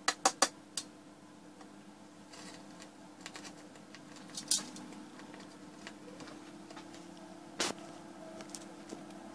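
Metal tongs click against a terracotta dish several times in quick succession as a piece of bread is dropped into a manganese heptoxide mixture (potassium permanganate with sulfuric acid). Sparse small pops and crackles follow from the reacting mixture, with one louder crack near the end.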